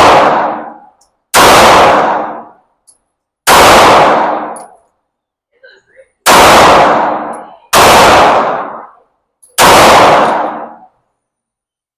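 Taurus pistol fired five times at an uneven pace, one to three seconds apart, each shot sharp and loud with a long echoing tail in an indoor range. Between the third and fourth shots there are faint light clinks.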